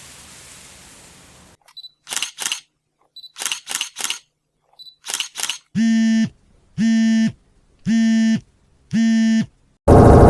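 Camera shutter sound effects: three times, a short high beep followed by two or three sharp shutter clicks. Then four buzzy beeps about a second apart, and a loud noisy sound starts near the end.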